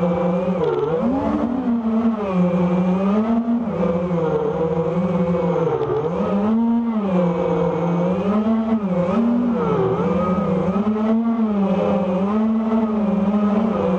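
Onboard sound of an FPV racing quadcopter's brushless motors and propellers, a loud whine whose pitch rises and falls over and over as the throttle is worked through turns.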